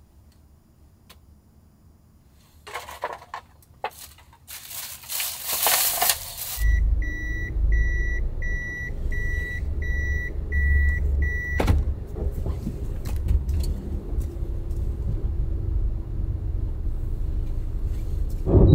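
Keys and rustling, then a Toyota Hiace van's engine starts about six and a half seconds in and settles into an idle. A dashboard warning chime beeps about eight times as it starts, and there is a sharp click near the middle.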